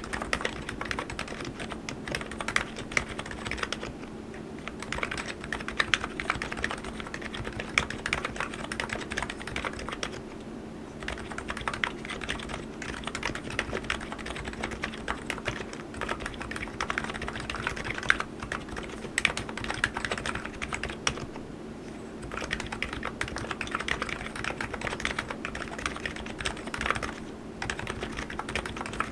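ABKO KN02C electro-capacitive (Topre-style) keyboard being typed on in fast, continuous runs of keystrokes, with brief pauses about 4, 10 and 21 seconds in.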